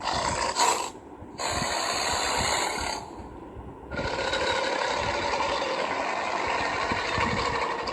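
Crocodile hissing in three bouts: two short ones, then a longer one starting about four seconds in.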